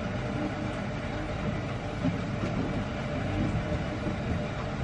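Steady café room noise: an even low rumble with a faint hum, with no distinct event standing out.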